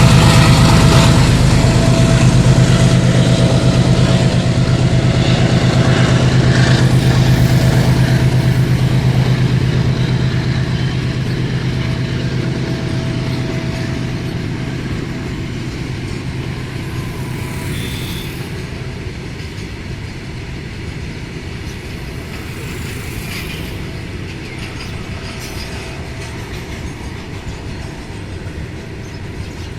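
GE WDG4G diesel-electric freight locomotive's V12 engine working at full notch, a deep hum with a steady higher whine, hauling a heavy train away. The sound fades steadily as the locomotive moves off, giving way to the rumble of the rolling wagons.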